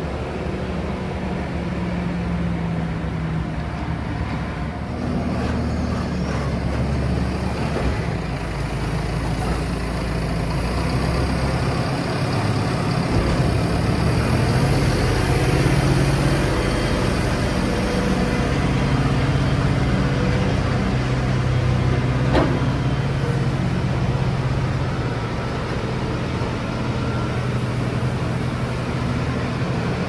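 Large farm tractor diesel engines running under load as silage is compacted on the clamp and a tipping trailer unloads grass, the engine note rising and falling. A single sharp knock about two-thirds of the way through.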